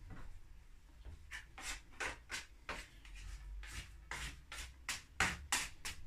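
Plastic dough scraper scraping sticky bread dough off a wooden worktop and fingers: a run of short, quick scrapes, about three a second, starting about a second in.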